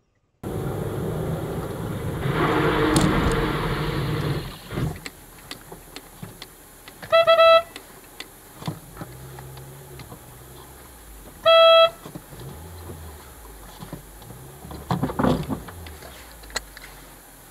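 A car horn sounds twice, two short blasts about four seconds apart, over low steady car noise. A loud rushing noise fills the first few seconds.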